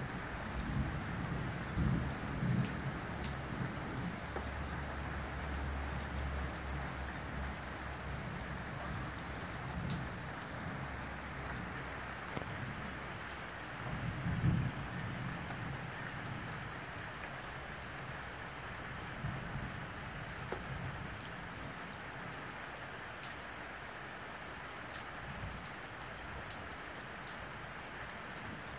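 Thunderstorm: steady rain pattering with scattered sharp drop hits, under low thunder rumbles that are strongest in the first few seconds and again about halfway through, then ease.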